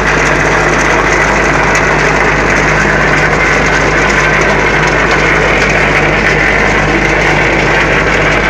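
Steady, loud running noise of a concrete mixer and an interlock-tile vibrating table, a constant low hum under a dense mechanical rattle and rumble.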